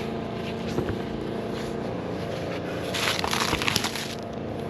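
Crinkling and crackling of a self-adhesive tar roofing sheet being peeled back and pressed into place, heaviest about three to four seconds in, over a steady low hum.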